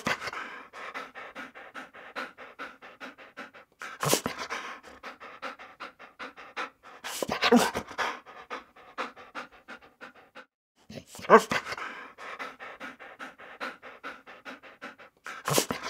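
Dog panting rapidly and evenly. Four times, about every four seconds, the panting breaks off for a moment and a single louder bark-like sound comes.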